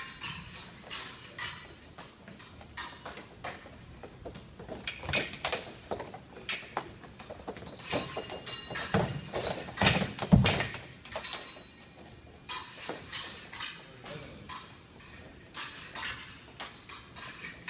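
Fencing bout: sneakers tapping, stamping and squeaking on the strip, with blades clashing in sharp metallic clicks that sometimes ring on. The action is busiest about nine to eleven seconds in.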